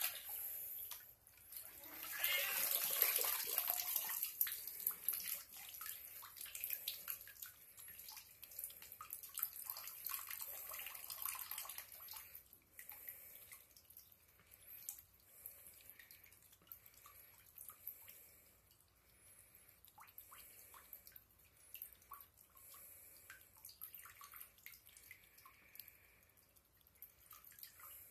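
A thin stream of water from a bathtub tap trickling and splashing onto a cat's head and into the tub. Loudest a few seconds in, then fainter, with scattered drips and splashes.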